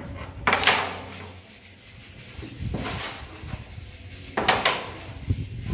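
Carrom game being played: the striker is flicked across the board and clacks into the coins, several separate sharp clacks with short sliding rasps, the loudest about half a second in and again just after four seconds.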